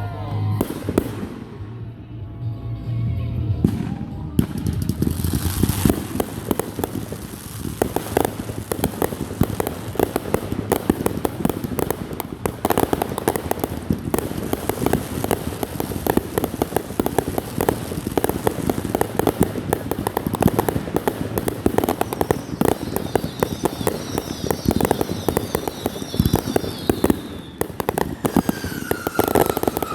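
Fireworks display: a dense, rapid barrage of bangs and crackles starting a few seconds in and going on throughout, with high whistling over it later on.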